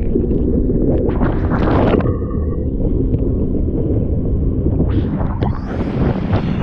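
Wind buffeting the microphone of an action camera on a barefoot water skier's tow handle, with water spray hissing up from the skier's feet as they plane over the boat's wake. The spray rushes louder about a second in and again from about five seconds in, and a faint brief high tone sounds near two seconds.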